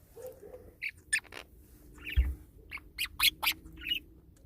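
Pet birds in a bird house giving a string of short, sharp squawks and chirps, about a dozen, some with a quick bend in pitch. A single low thump sounds a little after two seconds in.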